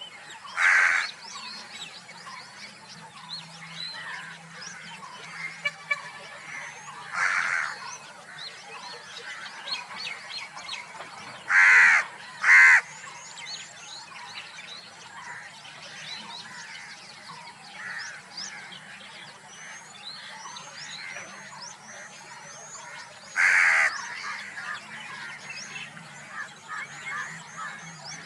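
A bird gives five loud harsh caws, each about half a second long and spaced irregularly, with two in quick succession near the middle. Many small birds chirp continuously in the background.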